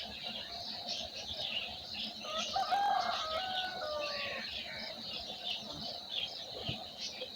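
A chorus of many small birds chirping continuously, with one longer, lower call of held, stepped notes lasting about two seconds near the middle.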